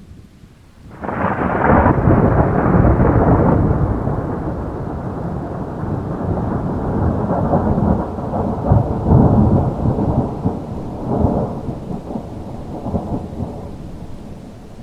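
Thunder in a rainstorm: a sudden loud thunderclap about a second in, then a long rolling rumble that swells several times and fades near the end, over steady rain.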